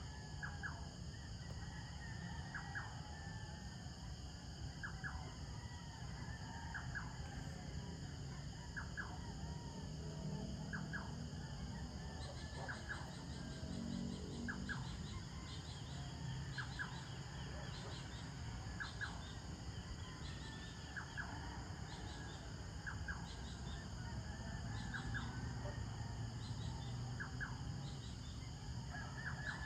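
Outdoor night ambience: short bird calls repeating every second or two, often in pairs, over a steady high insect chorus and a low distant rumble. A run of quick high ticking joins in the middle.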